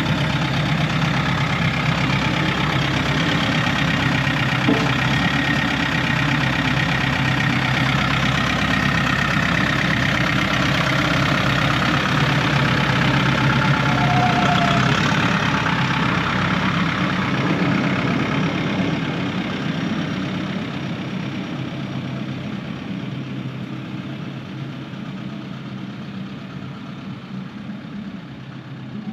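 A vehicle engine running steadily, growing quieter over roughly the last third.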